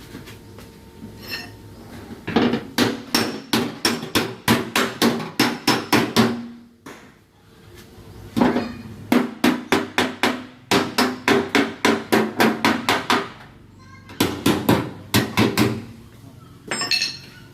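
Body-repair hammer tapping a dented car fender back into shape, in quick runs of strikes at about three a second with a brief metallic ring after each. There is a short pause near the middle and again later on.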